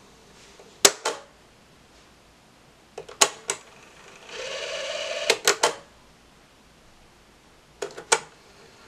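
Mechanical piano-key transport buttons of a 1970s Viking shoebox cassette recorder clunking as they are pressed and latch: stop about a second in, then rewind. The tape whirs briefly back through a short recording for about a second, stop clunks again, and play is pressed near the end.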